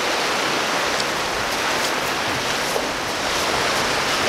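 Small waves breaking and washing up a pebble beach: a steady rushing wash of surf.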